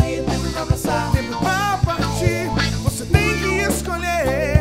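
Live band playing a pop-rock song: a male lead singer over electric guitar and a drum kit keeping a steady beat, with sustained low bass notes underneath. Near the end the voice holds a note with vibrato.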